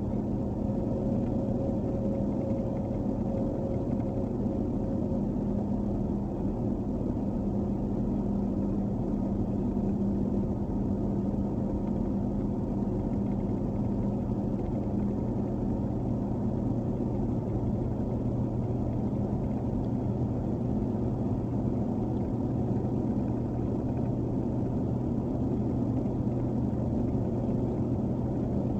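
Steady engine and tyre drone inside a truck's cab driving at highway speed on a snow-covered road, with a constant low hum.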